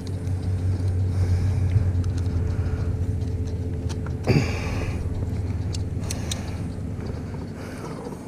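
A small motor humming steadily. About four seconds in there is a short sound that falls in pitch.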